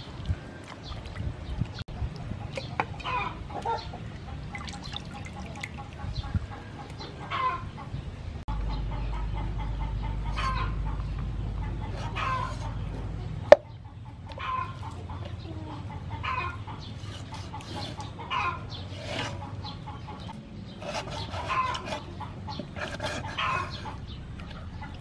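Chickens clucking repeatedly, hens calling every second or two. About halfway through, a low rumble runs for some five seconds and ends with one sharp loud knock, the chop of a cleaver on a wooden chopping board.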